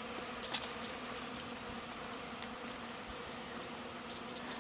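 A large swarm of honey bees buzzing in a steady, dense hum as thousands of bees settle into a new hive. A faint tick about half a second in.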